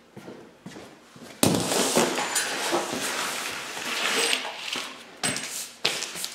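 A large paper sheet being handled and spread out, with a loud crackling rustle starting about a second and a half in and lasting several seconds, then two thumps near the end.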